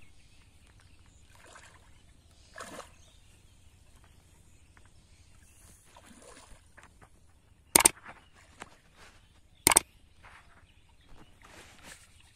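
Faint splashing and sloshing of shallow muddy water as hands feel through it for fish. Two sharp click sound effects, about two seconds apart near the middle, are the loudest sounds: the button clicks of a like-and-subscribe overlay animation.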